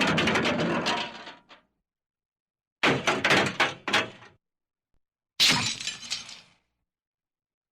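Crash sound effects of things smashing and shattering. One smash tails off, and two more follow about three seconds in and five and a half seconds in. Each is a sudden hit followed by a quick run of smaller clattering, breaking pieces that dies away within about a second, with dead silence between them.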